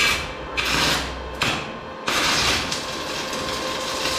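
Stick (arc) welding on a Cheston CHWM220 inverter welder: the electrode sputters in short crackling bursts, then from about two seconds in holds a steady crackling, hissing arc. The welding current is set very low.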